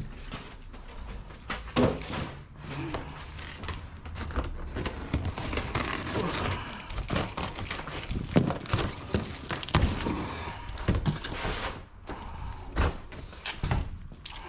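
Handling noises from unpacking a stainless steel roll cabinet: a run of clicks, knocks and light metallic clatter, with a busier stretch of rustling in the middle.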